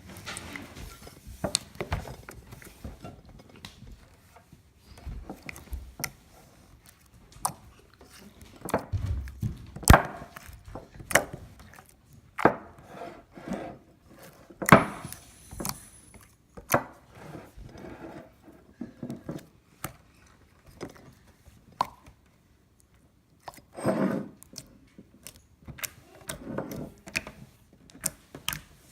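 Sticky glitter slime being mixed and pulled apart by hand, giving irregular clicks, pops and squishes; the slime is under-activated, so it sticks to the hands.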